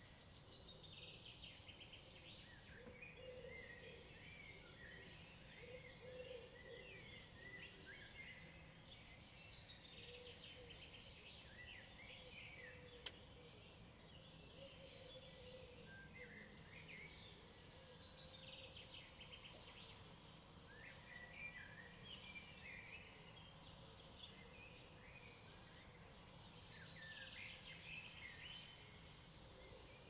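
Faint chorus of small songbirds chirping and singing, many short high calls and trills overlapping, with a single sharp click about thirteen seconds in.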